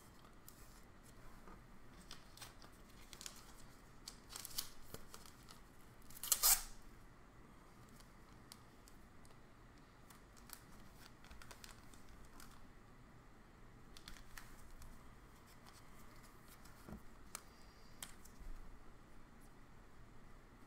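Faint crinkling and rustling of clear plastic as a trading card is handled in its wrapper and sleeve, in short scattered bursts, with the loudest crinkle about six seconds in.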